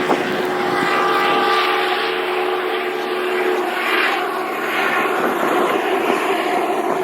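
A loud, steady engine drone with a few held tones over a rushing noise, starting abruptly.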